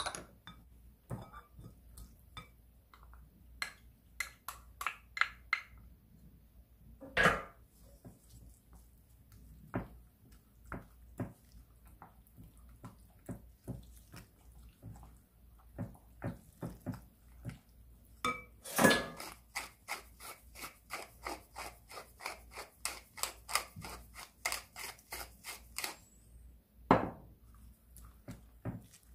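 Wooden spoon stirring a runny egg and cheese mixture in a glass mixing bowl, tapping and knocking against the glass over and over. The taps quicken into an even run of about three or four a second in the second half, with a few louder knocks along the way.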